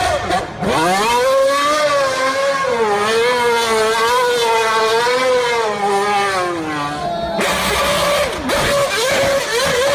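Race car engine revving: it rises in pitch at the start, then wavers up and down. About seven seconds in it changes to a noisier, steadier engine note.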